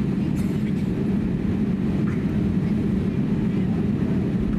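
Steady low drone in the passenger cabin of an Airbus A320neo, with a hum centred low in pitch and no change in level.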